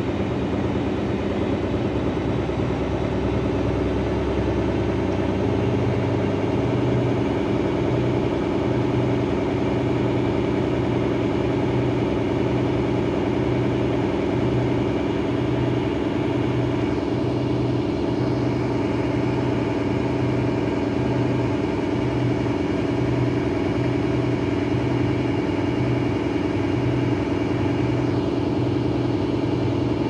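Daewoo DWD-FT1013 front-loading washing machine spinning with an unbalanced load: a steady motor and drum hum, with a low throb that pulses about once a second.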